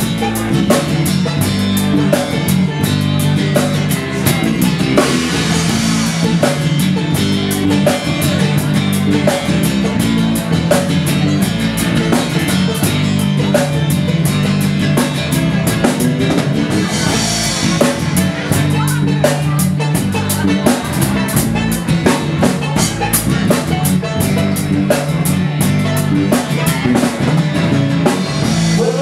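Live band playing an instrumental passage: guitars over a busy drum kit, with no singing.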